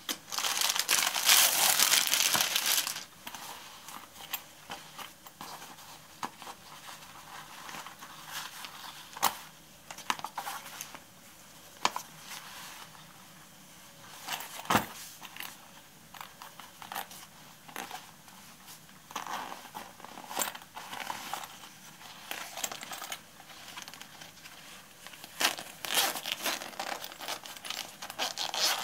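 Clear plastic packaging crinkling loudly for about the first three seconds as a fabric toiletry bag is handled inside it. After that come quieter rustles of the bag being handled, with scattered sharp clicks.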